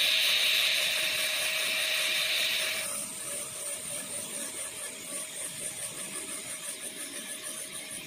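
High-speed dental handpiece running, its tapered bur grinding the lingual side of a practice molar for occlusal reduction. About three seconds in the loud hissing grind drops away, leaving a fainter steady whine with a fast, even pulsing.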